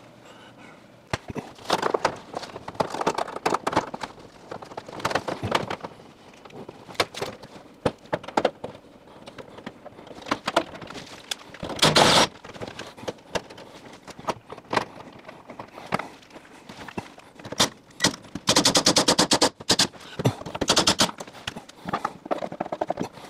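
Scattered knocks and clunks of an over-the-range microwave being fitted to its mounting, with one louder thump about halfway through. Near the end come two bursts of a power driver's fast rattle as screws are driven down through the cabinet bottom into the top of the microwave.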